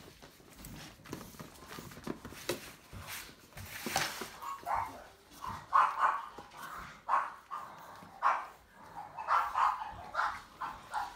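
An adult dog, the puppies' mother, barking in a rapid series of short barks, starting about a third of the way in and carrying on. Before the barking there is only light rustling and clicking.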